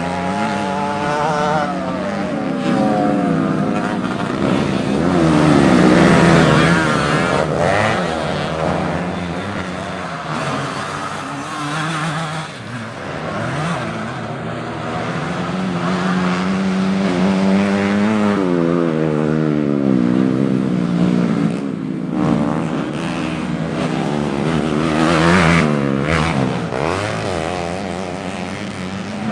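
Several modified underbone motorcycles racing, their engines revving hard, the pitches overlapping and repeatedly rising and falling as they accelerate and shift.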